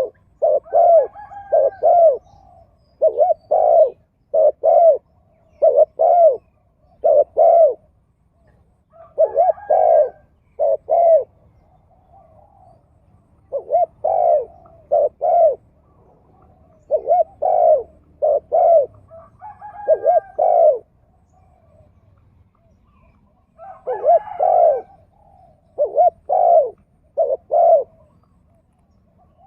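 Spotted doves cooing: repeated phrases of several deep, rounded coos, each phrase followed by a short pause.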